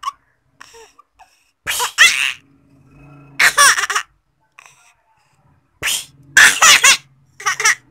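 A toddler laughing in four breathy bursts of giggles, separated by short pauses.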